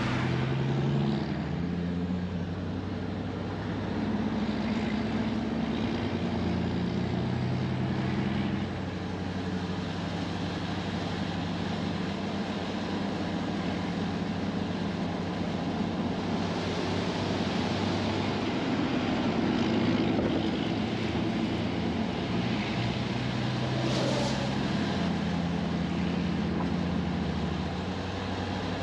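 Truck driving along: steady engine and road noise, the engine's pitch stepping up and down several times as its speed changes.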